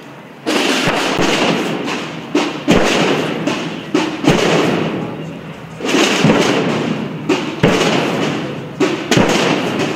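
Massed procession drums and bass drums (tambores and bombos) playing: a dense continuous drum roll with heavy bass-drum strokes landing every second or two, easing briefly about halfway before building again.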